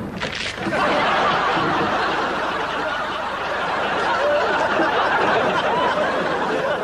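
Audience laughing, many voices at once, after a sudden sharp sound at the very start; the laughter swells about a second in and carries on steadily.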